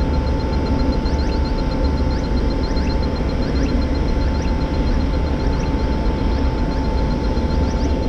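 Steady din of ship's air-conditioning machinery running: a low rumble with a constant hum tone. Over it an electronic refrigerant leak detector ticks rapidly and evenly while being passed along the refrigerant piping, with a few short rising chirps now and then.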